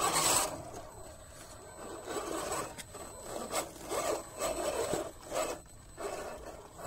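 Radio-controlled scale crawler truck working over rock, with its tyres and body scraping and rasping on the stone. The motor and gears whir in short bursts of throttle, after a brief loud rush of noise at the very start.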